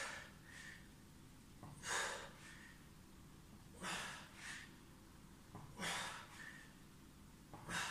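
A man breathing hard in time with side-plank crunch reps: a sharp exhale about every two seconds, five in all, each followed by a shorter breath.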